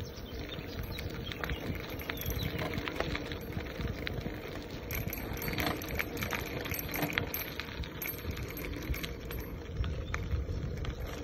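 Bicycle tyres rolling over a gravel path: a steady crunching with many small clicks and rattles, over a low rumble.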